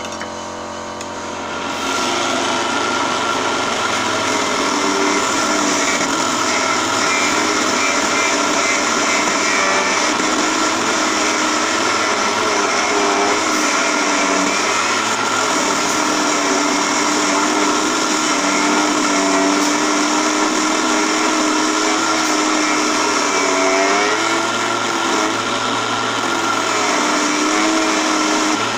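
Mini benchtop wood lathe motor running, then from about two seconds in a hand-held turning tool cutting the spinning wooden blank: a steady scraping hiss over the motor's whine, its pitch wavering now and then as the cut changes.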